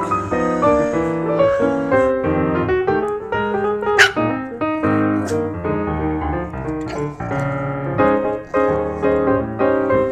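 Piano music playing, with a Yorkshire terrier puppy's sharp yip about four seconds in, the loudest sound, and a couple of fainter yips a little later.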